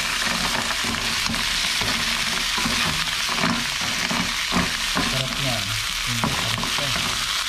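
Mussels sizzling in a hot pan with sautéed onion and tomato, a steady frying hiss, with a few short knocks as they are stirred.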